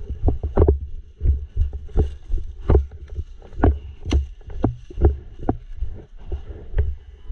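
Footsteps of an airsoft player walking, about two steps a second, each step a dull thump.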